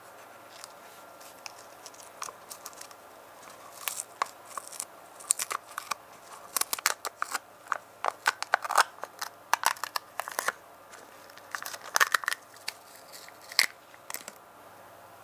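Masking tape being peeled off the top of a small plastic cup: many short crackles and tearing snaps, with the thin plastic crinkling under gloved fingers. It starts sparse and gets busy about four seconds in, stopping shortly before the end.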